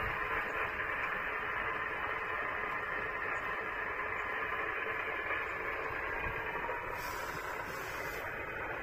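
Shortwave receiver tuned to the 17 or 15 metre amateur voice band, giving a steady static hiss with no station coming through. The hiss is narrow and dull, with no treble, like the audio of a receiver set for voice reception.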